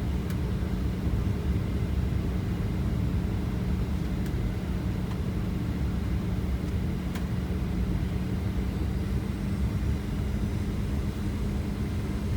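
Airliner cabin noise in flight: a steady low rumble of engines and rushing air, with a constant hum.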